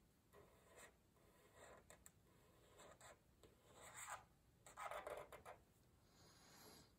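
Faint scratching of a black felt-tip marker drawing curved lines on paper, in several short strokes with the strongest about five seconds in.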